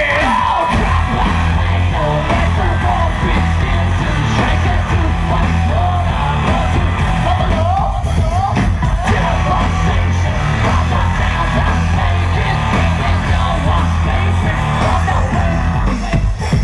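Live rock band playing loudly with heavy, pounding bass and drums, guitars and yelled vocals.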